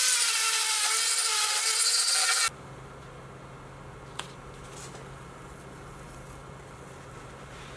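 A power tool grinding or sanding bamboo root, its motor pitch wavering under load, stops abruptly about two and a half seconds in. After that there is only a quieter low steady hum, with a single click about a second later.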